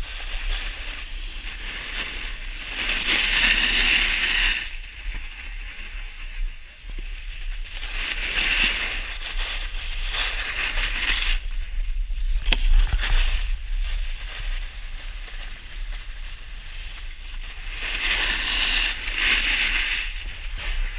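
Snowboard scraping over packed snow in several long swells as the rider carves and slides, with a sharp knock about halfway through.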